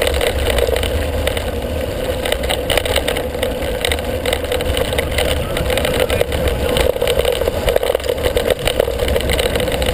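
Mountain bike rolling fast down a gravel dirt track: wind buffeting the handlebar-mounted action camera's microphone with a steady rush and rumble, over the crunch of tyres on loose stones and many small clicks and rattles from the bike.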